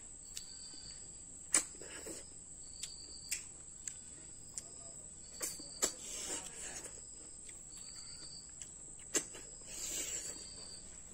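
Small cooked snails being sucked out of their shells: two drawn-out slurps about six and ten seconds in, among sharp clicks. Under it a steady high insect drone, likely crickets, with short repeated chirps.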